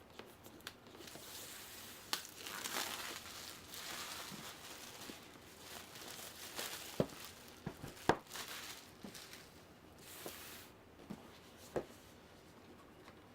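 Plastic shrink-wrap being torn and crinkled off a new board-game box, with a few sharp knocks and taps of handling the cardboard box.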